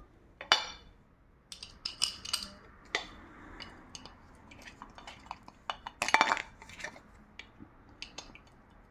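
Glass pot lid and granite-coated cookware clinking and clicking as they are handled, with small knocks from fitting the lid's knob and screw. Scattered short clinks, the loudest a ringing clink about six seconds in.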